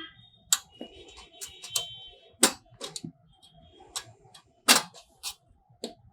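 Irregular sharp plastic clicks and taps, about a dozen, the loudest just before the last second, as the locking tabs of a Canon LBP 2900 laser printer's laser-unit cover are worked loose.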